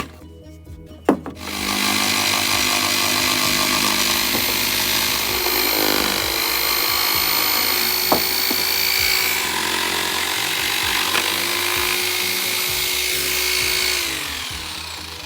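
Electric power saw cutting wood: a couple of knocks, then the motor starts and runs steadily for about twelve seconds, and near the end its pitch falls as it winds down. Background music plays underneath.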